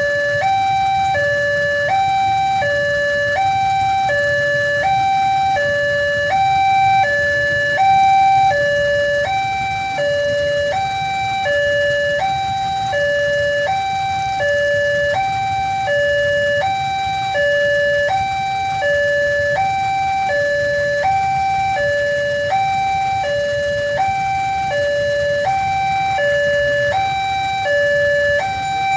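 Railway level-crossing warning alarm: an electronic two-tone signal alternating steadily between a higher and a lower pitch, about one high-low cycle a second, over a low steady rumble. It sounds while the crossing is closed for an approaching train.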